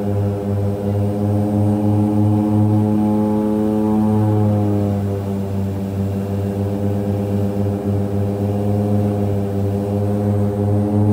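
Twin Otter's Pratt & Whitney PT6A-34 turboprop engines and propellers droning steadily, heard inside the passenger cabin: a deep hum of several layered tones with a pulsing low end. The pitch dips slightly about five seconds in, then settles.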